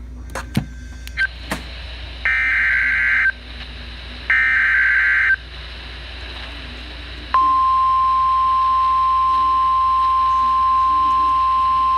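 Emergency Alert System SAME header: after a few clicks, two bursts of screeching digital data tones about a second long each. About seven seconds in, the National Weather Service's single steady 1050 Hz warning alarm tone starts and holds, announcing a new warning.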